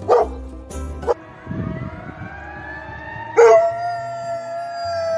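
A chocolate Labrador howling. A soft rising wail swells, about three seconds in, into one long, loud, held howl.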